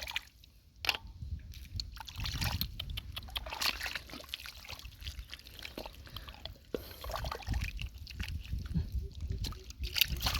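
Hands digging through wet mud and shallow water for clams: irregular wet stirring with many small clicks and splashes.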